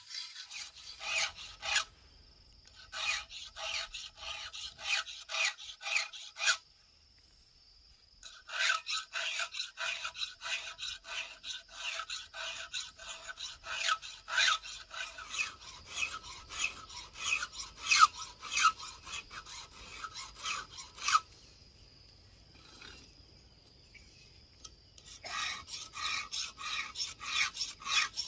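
A file rasping across the cutters of a Stihl MS 070 chainsaw's chain, in even strokes about two a second, in runs broken by a few short pauses.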